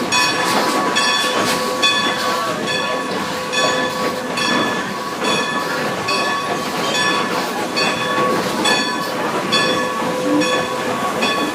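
Passenger train running along the track, heard from inside a coach, with a regular metallic ringing a little under twice a second over a steady rolling rumble.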